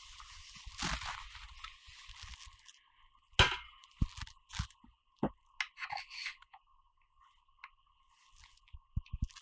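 A 15 mm carbon fiber rod being handled and fitted into a shoulder rig's rod holder: scraping and rustling at first, one sharp knock about three and a half seconds in, then a few lighter clicks and taps, with a quick run of small knocks near the end.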